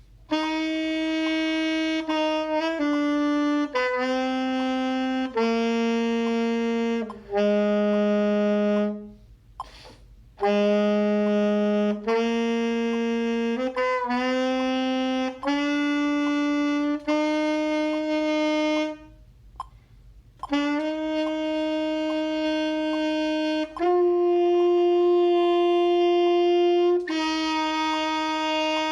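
Saxophone playing a slow warm-up of long held notes on C, B, A, G and F. It steps down the five notes, pauses briefly, steps back up, then holds long notes near the top after another short break.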